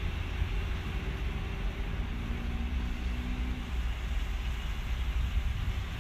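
Wind buffeting the microphone in an open field: a steady low rumble with a rushing hiss over it, and a faint hum about a third of the way in.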